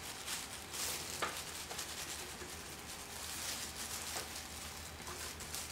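Thin plastic disposable gloves crinkling and rustling as gloved hands brush and rub metallic wax paste onto a small base, with a few brief scratchy scrapes. A steady low hum sits underneath.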